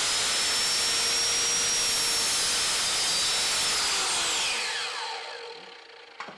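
Electric compound mitre saw running at full speed as it crosscuts a Tasmanian oak board, a steady high motor whine over the noise of the cut. About four seconds in it is switched off and the whine falls away as the blade spins down, followed near the end by a short knock.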